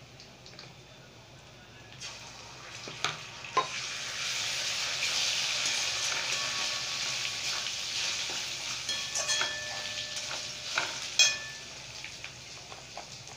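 Onions and ginger-garlic paste sizzling in oil in a metal kadhai while a steel spatula stirs and scrapes them, with sharp clinks of the spatula against the pan, the loudest near the end. The sizzle swells a couple of seconds in and dies down toward the end.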